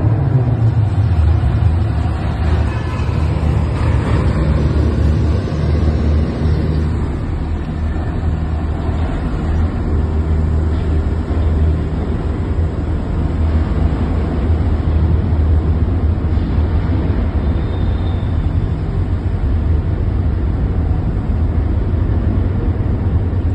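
BMW M5's twin-turbo V8 running loud and steady while the car drives, heard from inside the cabin with road noise.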